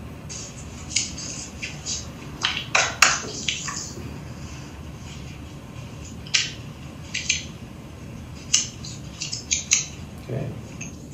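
Sheets of paper being handled and turned as a contract's pages are signed: short crisp rustles and sharp clicks at irregular moments, over a steady low room hum.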